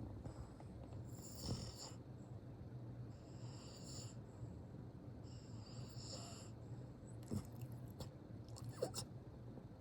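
French bulldog snoring in its sleep: three wheezy breaths about two seconds apart, then a few soft rustles.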